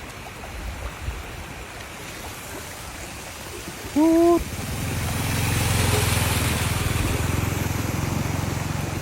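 A motor vehicle's engine coming close and passing, its hum swelling about five seconds in and easing off, over a steady rush of floodwater. About four seconds in there is a short, loud single tone.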